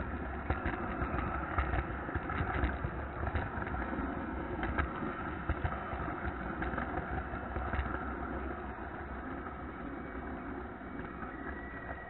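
Model train running on three-rail track, heard from a camera riding on one of its flat cars: a steady rolling rumble with frequent sharp clicks as the wheels cross rail joints and switches, easing off a little in the last few seconds.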